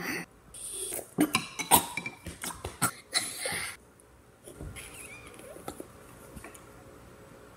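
Two young girls making silly vocal noises: quick cat-like hisses, squeals and breathy bursts mixed with clicks. The noises come thick for the first few seconds and die down about halfway through.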